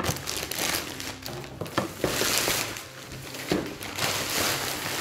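Thin plastic carrier bag crinkling and rustling as hands pull a cardboard box out of it, in several louder swells.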